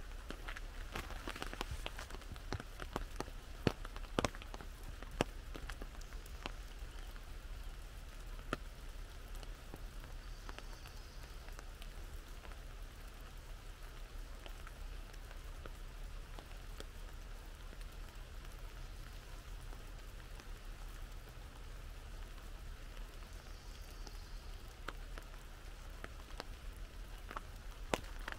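Rain falling on an umbrella: a steady hiss with scattered sharp taps of single drops, thickest in the first few seconds and again near the end.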